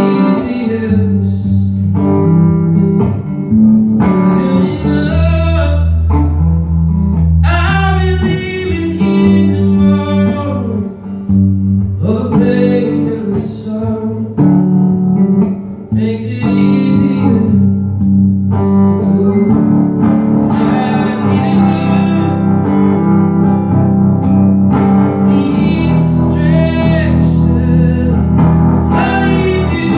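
Live song: a man singing in phrases into a microphone over electric guitar, with sustained low notes underneath.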